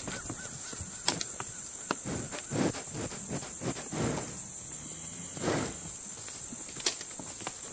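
Steady high-pitched insect chorus, with scattered short rustles and a few sharp clicks over it.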